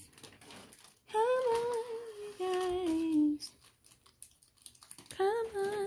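A voice humming a tune in three short phrases with pauses between, each held note drifting slightly down in pitch.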